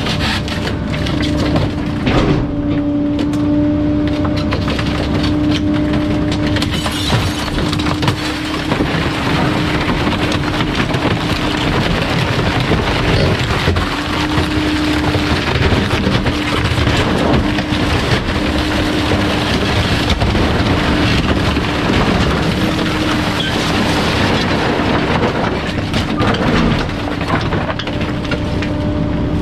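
Bulk-waste truck's engine and hydraulics running under load with a steady whine, while bulky items crack and snap as they are crushed.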